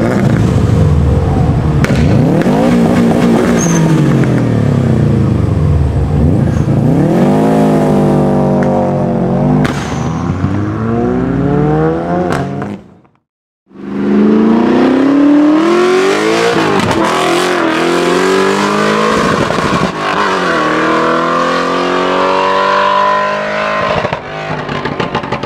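Modified car engines accelerating hard, the engine note climbing and falling in pitch several times. A short silent break about halfway, then another car accelerating away with its note rising again.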